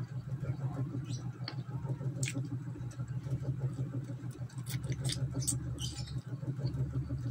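Close-up chewing and lip-smacking of someone eating chicken adobo off the bone by hand: short, wet mouth clicks and smacks, scattered irregularly, over a steady low hum.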